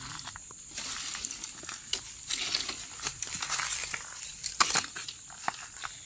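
Dense brush, vines and dry leaves rustling and crunching as people push through undergrowth, with scattered sharp snaps of twigs, one louder about four and a half seconds in.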